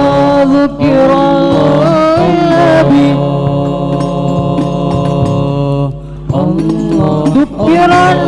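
Male vocal group singing Arabic sholawat in harmony, a cappella: a lead voice carries an ornamented melody over steady held notes from the other singers. About three seconds in the voices hold one long chord for some three seconds, then the melody moves on again.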